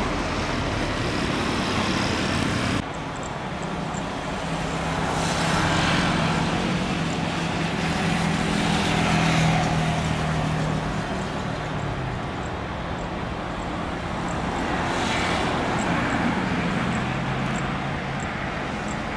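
Boeing 787-9 Dreamliner's GE GEnx engines running at taxi power as the airliner rolls slowly along: a steady low hum with a faint whine, rising and falling in slow swells of jet hiss. The sound drops abruptly about three seconds in.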